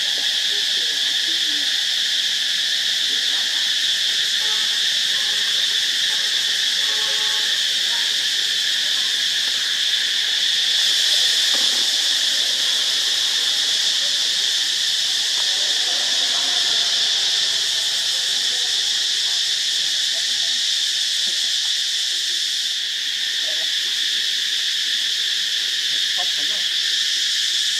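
Steady insect chorus, a continuous high-pitched drone that does not let up.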